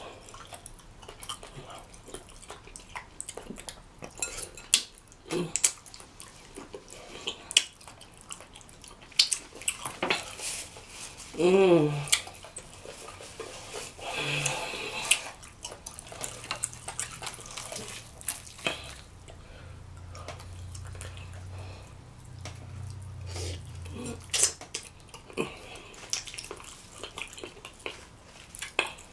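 Close-miked wet eating: chewing and lip smacking on rotisserie chicken and vegetables dipped in cheese sauce, eaten by hand, with many sharp clicks and the odd clink against a glass bowl.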